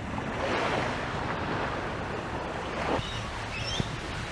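Sea surf washing on a beach, with wind buffeting the microphone: a steady wash of noise that swells about half a second in.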